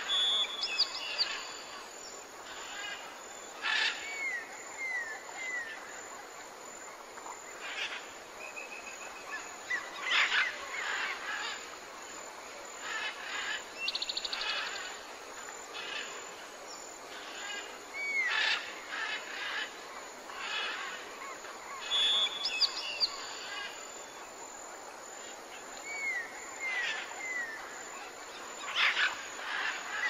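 Bird calls and chirps over a steady outdoor background, with short runs of quick falling whistled notes. The same sequence of calls comes round again about twenty seconds later, as in a looped nature ambience.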